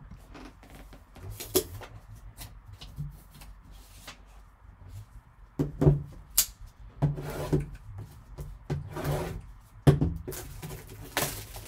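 Gloved hands handling a sealed cardboard trading-card box: irregular rubbing and scraping on the box, with knocks as it is turned over and set down. The sharpest knocks come about six and ten seconds in.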